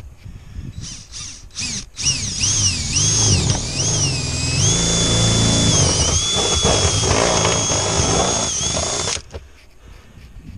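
Power drill boring starter holes through a steel sheet-metal roof panel: a few short trigger pulls, then about two seconds in a long run whose high motor whine rises and falls with the trigger before steadying. It stops abruptly near the end.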